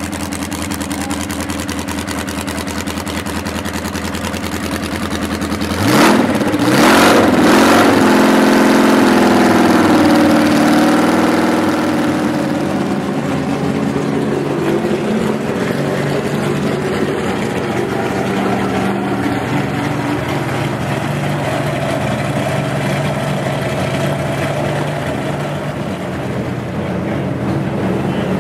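Racing car engines running, with one car going past loudly about six seconds in. Its engine note falls as it moves away, and engine sound carries on afterwards.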